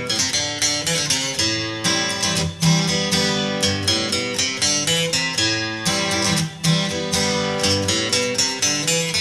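Background music led by a strummed acoustic guitar, with a steady rhythm of plucked notes.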